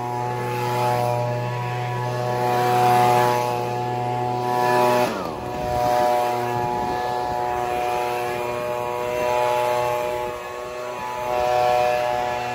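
Echo PB-2520 handheld leaf blower running at high speed, its two-stroke engine with the rush of air from the blower tube. The engine speed dips briefly about five seconds in, then comes back up.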